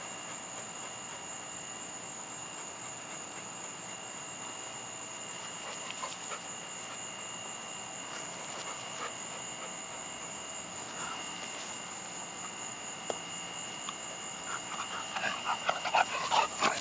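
A steady high-pitched drone with a second, lower tone runs underneath, with a few faint taps. Near the end a dog starts panting in quick, short breaths that grow louder.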